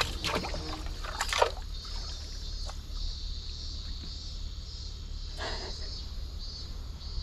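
Small water sounds trickling against a rocky bank, under a steady high hiss, with a few brief swishes.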